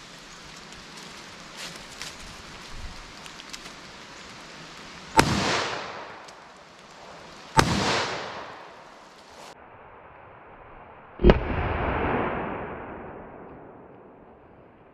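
Three shots from a revolver firing .410 triple-aught buckshot shells, the second about two and a half seconds after the first and the third about three and a half seconds later, each followed by a ringing tail that dies away over a second or two.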